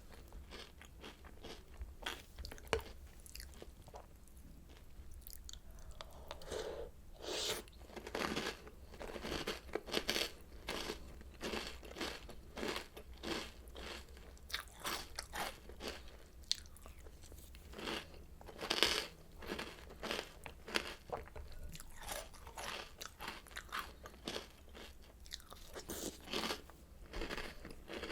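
Mouthfuls of Oreo O's cereal being chewed: a run of crisp, irregular crunches, easing off briefly a few seconds in.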